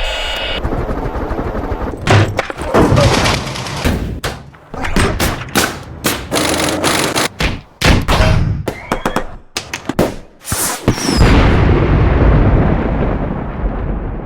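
Layered sound effects. An electronic alarm beeping stops just after the start, and an irregular run of sharp bangs and impacts like gunfire follows. Then comes a long, loud rumbling blast like an explosion that slowly fades.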